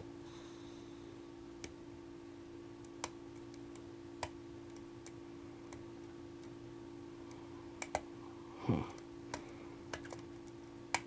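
Sparse, irregular small metallic clicks of a hook pick and tension tool working the pins inside a Medeco biaxial lock, with a brief louder scuff near the end.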